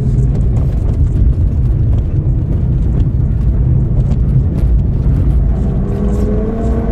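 Audi TT RS's turbocharged five-cylinder engine running in third gear under a heavy low rumble from the road, heard from inside the cabin as the car goes through a banked corner. Near the end the engine note rises as it accelerates.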